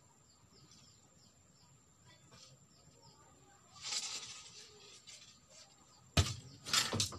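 Split bamboo strips being handled: a brief scraping rustle about four seconds in, then sharp clattering knocks near the end as the strips hit one another. Faint bird chirps in the background.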